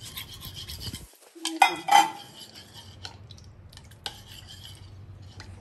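A steel spoon stirs arrowroot powder into water in a ceramic plate, scraping and clinking against the plate. Two louder clinks come close together about a second and a half in.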